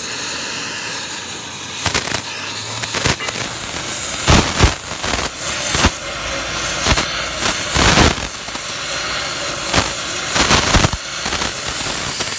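Oxy-fuel torch flame hissing steadily against the end of an excavator boom pin, with a string of sharp, irregular pops and cracks as the flame plays over the metal.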